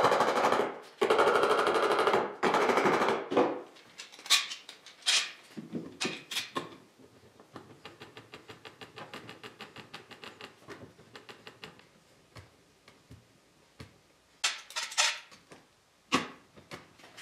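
A mallet tapping quickly and repeatedly on a glued wooden joint to drive it home, followed by clicks and a run of even ratcheting clicks as bar clamps are slid on and tightened across the frame.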